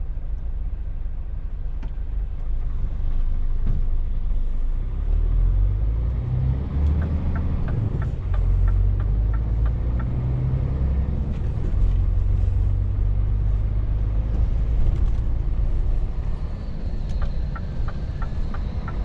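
Scania truck's diesel engine heard from inside the cab, pulling away and picking up speed, its rumble growing louder a few seconds in. A regular ticking comes and goes over it, in the middle and again near the end.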